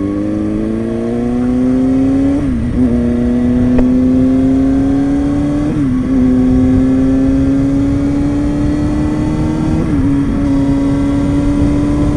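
Kawasaki ZX-6R 636 inline-four motorcycle engine pulling steadily under acceleration, its pitch climbing and then dropping at three upshifts, about 2.5, 6 and 10 seconds in. Wind rushes over the microphone throughout.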